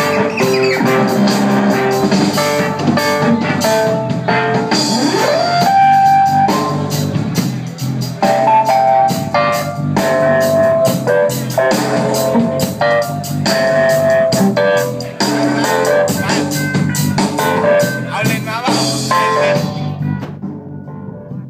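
Live band playing dub music with keyboard, electric guitar and drums, a steady beat under held keyboard notes. A rising pitch glide sweeps up about five seconds in, and the music breaks off abruptly near the end.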